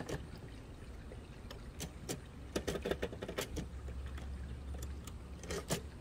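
Irregular mechanical clicks and clacks from a 1960s Torpedo 18B portable typewriter as keys are pressed and the carriage is handled to set tab stops on its keyset tabulator; the tab-setting mechanism is sticky.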